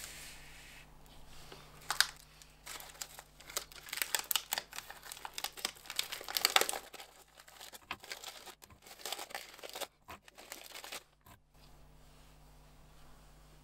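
Plastic wafer-bar wrapper being torn open and crinkled, in irregular bursts of rustling and sharp rips; the crinkling stops about eleven seconds in.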